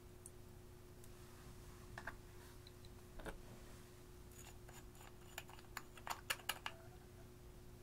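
Small plastic clicks and taps from handling and unscrewing the cap of a loose eyeshadow pigment jar, bunched in a quick cluster about five to six and a half seconds in, over a faint steady hum.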